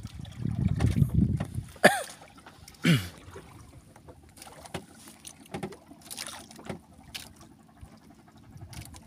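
Wind buffeting the microphone and water around a small wooden outrigger boat adrift at sea. Two short sounds fall in pitch about two and three seconds in, followed by scattered light clicks and taps.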